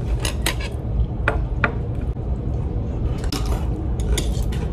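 Chopsticks clicking and clinking against a metal plate as a piece of food is picked up, a scatter of short sharp taps over a steady low background rumble.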